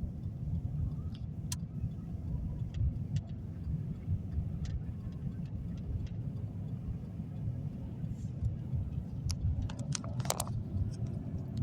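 Car driving, heard inside the cabin: a steady low rumble of road and engine noise, with scattered light clicks and a brief louder rattle about ten seconds in.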